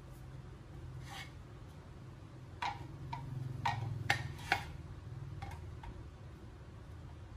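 Parts of a self-assembly shoe cabinet clicking and knocking together as it is put together: about eight short, sharp clicks, the loudest bunched around the middle, over a faint low hum.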